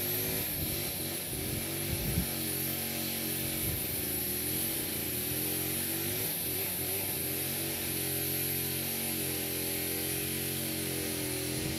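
Small camera drone's propellers humming steadily, the pitch wavering slightly now and then.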